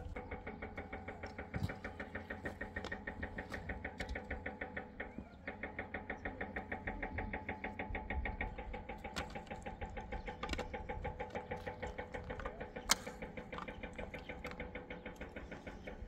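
A small machine running with a fast, even ticking rhythm of several clicks a second over a steady hum, with one sharper click about two-thirds of the way through.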